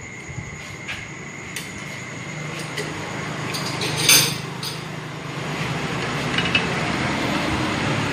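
Metal parts clinking and knocking as a motorcycle wheel rim is clamped tight onto a rim-straightening machine, with one louder metallic clank about four seconds in.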